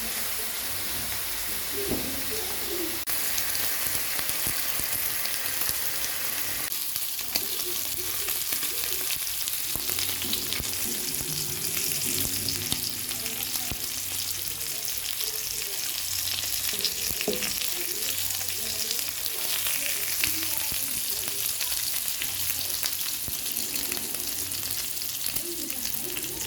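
Food sizzling as it fries in a pan with no oil, a steady hiss with many small crackles of spatter.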